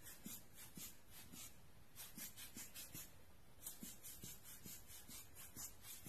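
Giottos Rocket rubber-bulb air blower squeezed in quick succession, a faint run of short air puffs about three a second with two brief pauses, blowing wet alcohol ink across plastic film.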